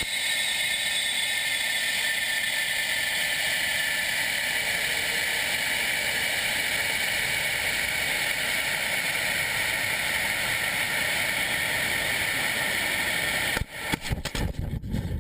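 Steady, loud rushing hiss of a high-power rocket in flight, with faint whistling tones slowly falling in pitch. About 13.5 s in it cuts off abruptly and gives way to gusty wind buffeting.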